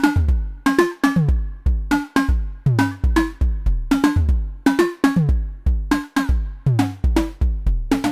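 Analogue percussion synth voices from Slim MPS eurorack modules (Thomas Henry's Mega Percussive Synth design) playing a looping drum-machine pattern, several hits a second. It mixes deep kick-like thumps with pitched, tom-like tones whose pitch drops quickly after each strike.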